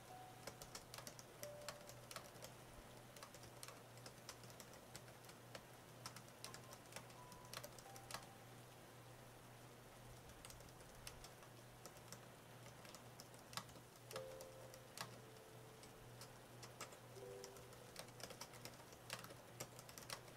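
Typing on an AlphaSmart portable word processor's keyboard: a quiet, irregular run of keystroke clicks.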